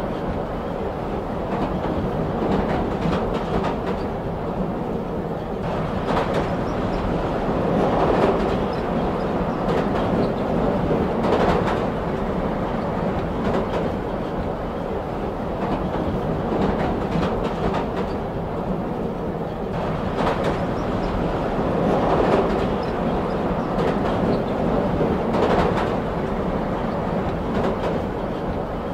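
Train running along the rails: a steady rumble with rail-joint clacks every few seconds.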